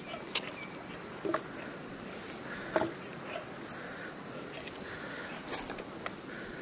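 Steady high-pitched chorus of night insects in the forest, unbroken, with a few light clicks and knocks from the camera being handled.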